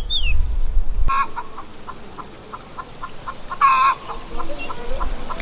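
Domestic chickens clucking: a run of short, evenly spaced clucks with two louder calls, one about a second in and one near four seconds. A low rumble stops abruptly about a second in.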